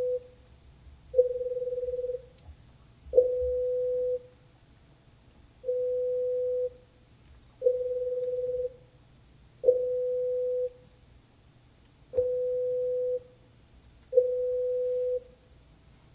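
A run of pure tones at one steady pitch, each about a second long, in sets of three about two seconds apart. The middle tone of each set is amplitude-modulated so that it flutters, more shallowly in each set: a test of amplitude-modulation detection that relies on high-threshold auditory nerve fibres. Several tones start with a little pop.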